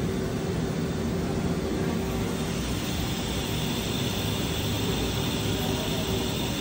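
Spindle of a 2006 Haas VR11B machining center running steadily with no cutting load: an even whirring hum with a faint steady tone.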